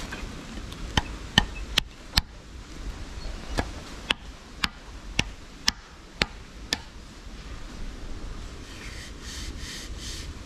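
A run of sharp knocks, about two a second: four, a short pause, then seven more. They come while a trail camera is being fixed in place. Near the end there is a softer scratchy rustling.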